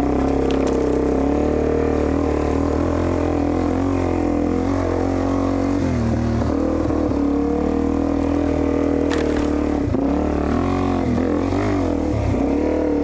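Dirt bike engine running on a trail, its pitch rising and falling with the throttle, with a short sharp tap about nine seconds in.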